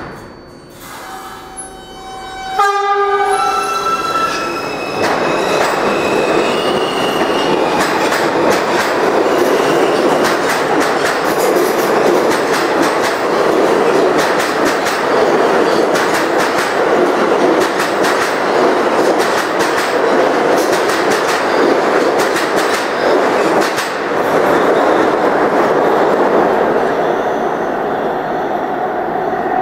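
R160A subway train pulling out of the station. About two and a half seconds in, its traction motors start with a whine that climbs in steps as it speeds up. Then come the steady rumble of the cars rushing past and the clickety-clack of wheels over rail joints.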